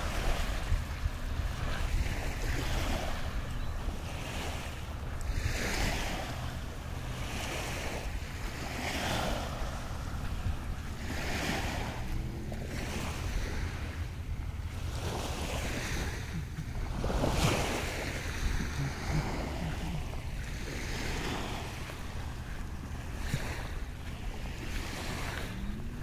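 Small river waves lapping on a sandy shore, a soft surge every second or two, with wind rumbling on the microphone throughout. One wash about two-thirds of the way in is louder than the rest.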